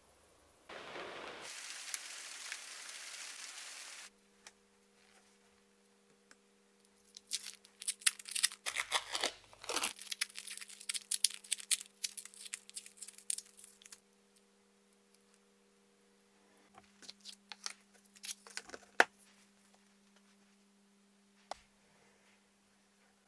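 Paper tape being peeled, torn and crumpled off a knife blade, a dense run of crinkling and tearing for several seconds in the middle. A steady hiss comes first for about three seconds, and a few light clicks follow near the end.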